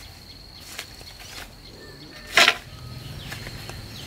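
Steady high insect drone over quiet outdoor ambience, with a few faint ticks and one loud short noise about two and a half seconds in.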